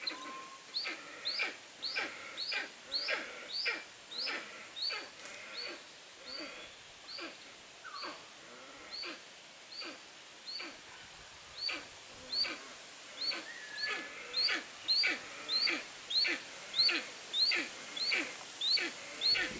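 Steppe eagle calling: a harsh, repeated call given about twice a second, fading somewhat midway and growing louder toward the end.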